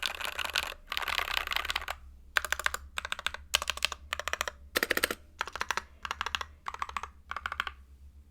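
Typing on a stock NK65 mechanical keyboard with factory-lubed Silk Emerald linear switches, a polycarbonate plate and its stock keycaps and stabilizers. A steady stream of keystrokes for about two seconds gives way to a series of short, separate bursts of rapid key presses, which stop shortly before the end.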